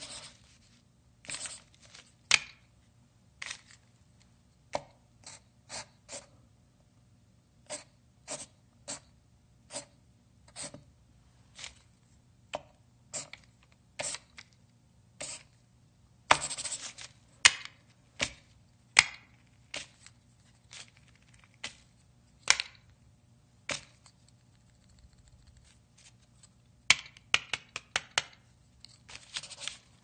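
Pencil writing on paper: short, irregular scratching strokes, with a longer run of scratching about halfway through and a quick cluster of strokes near the end.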